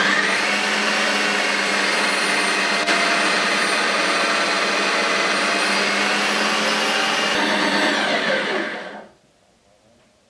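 Ninja CREAMi NC300EU ice cream maker running its Ice Cream program, its motor spinning the blade through a frozen pint of raspberry ice cream base with a loud, steady whir. The motor winds down and stops about nine seconds in as the cycle ends.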